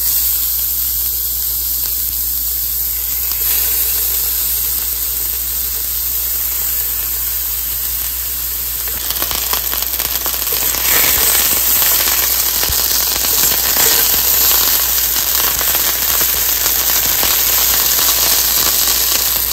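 Seasoned chicken tenders frying in hot olive oil in a pan: a steady sizzle that starts suddenly as the chicken goes in, turning louder and more crackly with spitting oil about nine seconds in.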